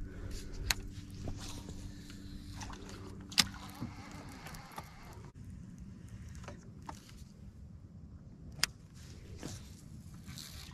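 A small boat motor hums low and steady, then cuts off about four seconds in. A few sharp clicks and knocks of fishing gear handled in the boat are heard, the loudest about three and a half seconds in.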